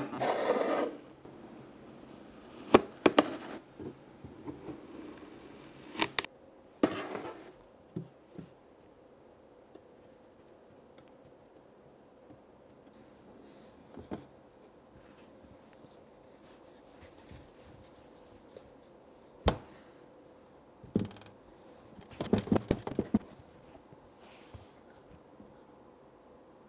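Kinetic sand being worked by hand with plastic moulding tools: short scraping, crumbling bursts and a few sharp clicks of plastic on the tabletop, with a long quiet stretch in the middle.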